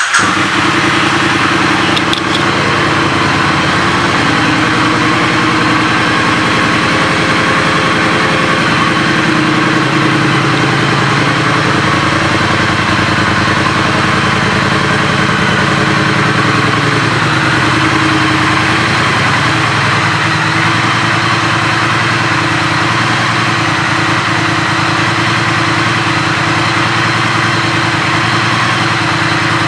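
A 2022 Triumph Street Twin's 900 cc parallel-twin engine idling steadily through its stock twin mufflers, freshly started.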